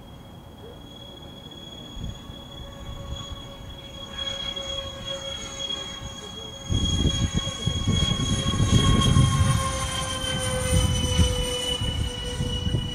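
Airbus A380 jet engines passing low overhead: a steady high whine whose pitch falls slowly as the aircraft goes by, with a deep rumble that swells suddenly about seven seconds in and stays loud.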